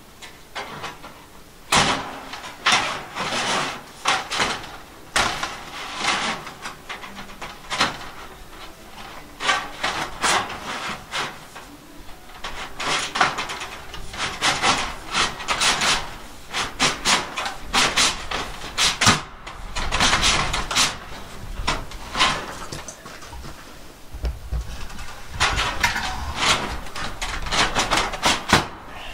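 Steel J trim being worked into place under a ribbed steel wall panel: irregular metal scraping and rattling as the trim is slid and pushed up under the sheet.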